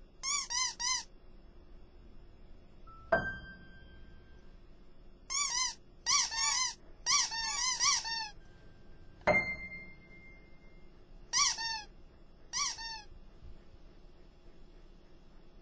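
Cartoon squeak sound effects for small bouncy creatures: quick runs of short, high squeaks, each bending up and then down in pitch, coming in clusters of three to six. Two sudden sharp hits, about three and nine seconds in, each ring on briefly in a steady tone.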